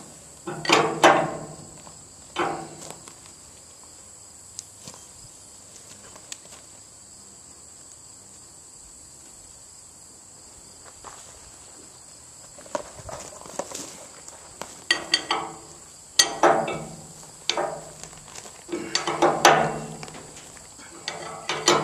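Long wrench turning the nut of a 5/8-inch A325 bolt held in a Skidmore bolt tension calibrator. A few strokes come at the start, then a quiet stretch with faint clicks, then a run of loud strokes each about a second long in the last several seconds, as the nut is turned a third of a turn past snug to tension the bolt. Insects drone steadily at a high pitch in the background.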